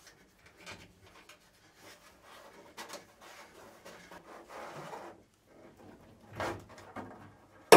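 Electrical wire rubbing and scraping as it is fed through the holes of a metal car boot lid: soft, uneven handling sounds, with a sharp click right at the end.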